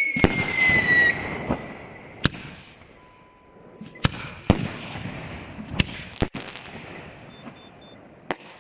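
Aerial fireworks: a whistle falling in pitch cuts off about a second in, then shells burst in a string of sharp bangs with crackling in between, the loudest near the start.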